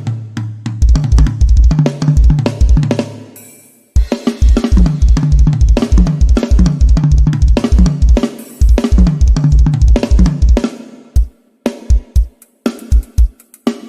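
Sampled drum kit playing a fast, driving groove of kick drum, snare and cymbals over a low pitched bass line. It cuts out for a moment about three and a half seconds in, restarts, and thins to scattered hits near the end.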